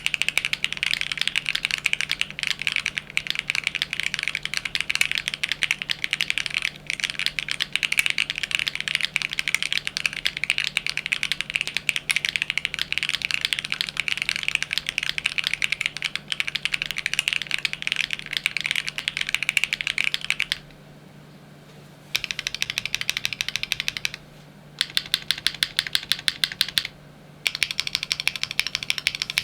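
Typing on a Geonworks Frog mini leggera mechanical keyboard with Geon Raw HE hall-effect switches, a carbon fiber plate and GMK keycaps. The typing is fast and continuous until about two-thirds through, then comes in short runs with pauses, one run being a quick even string of keystrokes.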